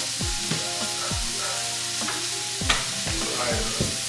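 A background hip-hop beat with deep bass kicks that drop in pitch about twice a second and held synth tones, over a steady sizzling hiss of food frying in a pan.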